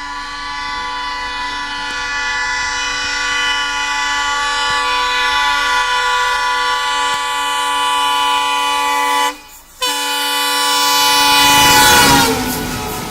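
A WDG 3A diesel locomotive's horn sounding one long loud blast, broken off briefly about nine and a half seconds in, then resuming and dropping in pitch near the end as the locomotive passes close by, with the rumble of the train coming in under it.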